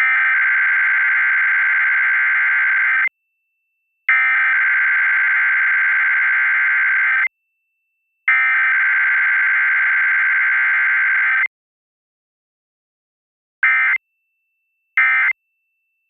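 Emergency Alert System required weekly test: the SAME digital header, a screechy two-tone data burst sent three times, each about three seconds long with a second's pause between. This is followed by two short end-of-message blips about a second apart.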